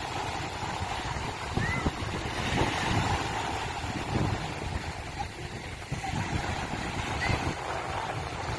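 Wind buffeting the microphone over a steady rushing outdoor noise.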